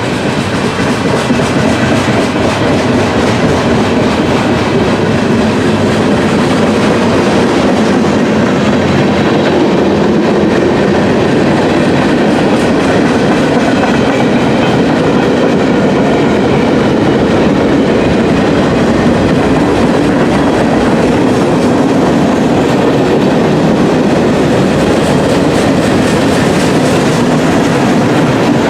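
Freight train cars rolling past with a steady clickety-clack of wheels over the rail joints.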